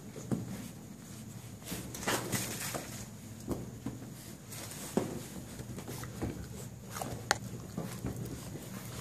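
Six-week-old hound mix puppies playing: scuffling, scratching and small knocks, with a few short squeaky yips.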